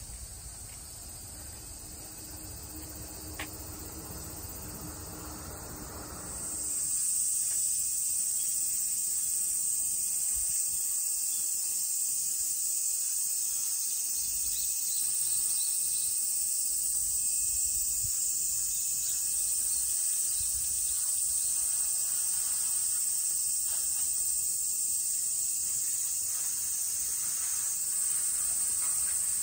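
A chorus of cicadas calling steadily in a high, even buzz, much louder from about six seconds in. Before that a low rumble sits under a fainter insect sound.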